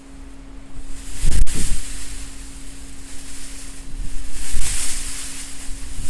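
Gusty typhoon wind buffeting the microphone, swelling hard about a second in and again near the end. A faint steady hum runs underneath.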